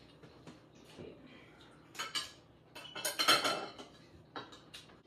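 Forks and spoons clinking and scraping on ceramic plates and bowls as several people eat, in scattered sharp clinks with a louder flurry about three seconds in.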